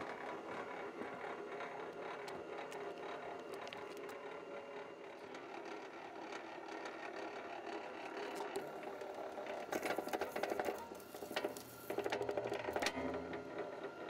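BLUEROCK MWS-808PMO motorized wire stripper running, its 1 HP electric motor and gear-driven cutter and feed rollers giving a steady mechanical whir as thick stranded THHN copper cable is fed through and its insulation slit. About ten seconds in, and again a second or two later, come louder spells of rapid clicking and crackling.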